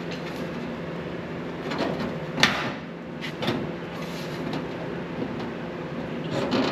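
A sheet-metal patch panel being held against the body and clamped with vise grips (locking pliers): a few sharp metal knocks and clicks, the loudest about two and a half seconds in, over a steady background hum.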